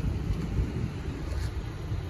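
Low, uneven rumble of wind buffeting the microphone, with no distinct clicks or knocks.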